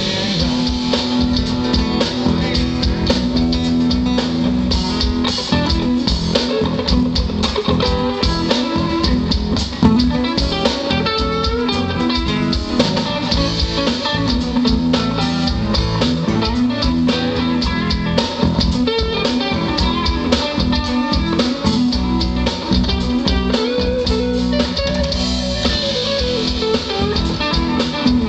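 Live band playing a passage without singing: electric and acoustic guitars over a drum kit, with a steady beat.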